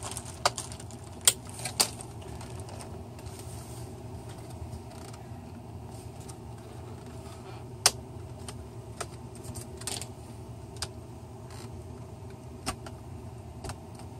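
Plastic snap clips of an Asus K53U laptop's thin screen trim bezel clicking and popping as the bezel is pried loose by hand. The sharp clicks come irregularly, a few close together at the start and single ones every couple of seconds after, over a steady low hum.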